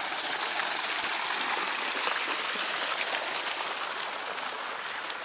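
Park fountain's water jets splashing into the basin: a steady rush of falling water, easing slightly toward the end.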